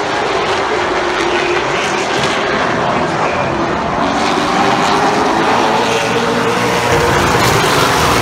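A field of stock cars racing on a short oval, their engines running at full throttle in a dense, steady drone. It grows louder and deeper near the end as the pack comes past.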